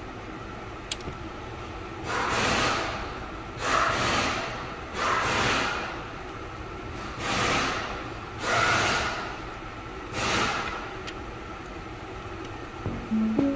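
Six short hissing bursts of compressed air from a blow gun, each about a second long with a sharp start and a fading tail, spaced one to two seconds apart. Music comes in near the end.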